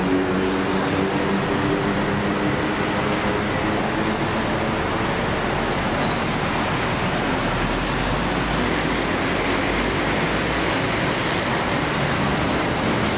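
Steady city road traffic noise from passing vehicles, with the hum of an idling or passing engine in the first few seconds.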